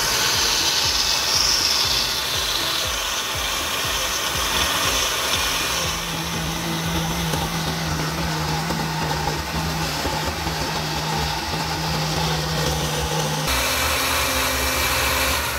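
Countertop blender running, blending tomatoes, pepper, crayfish and onions into a smooth purée. Its motor note changes about six seconds in and again near the end, as the chunks break down, and it stops at the end.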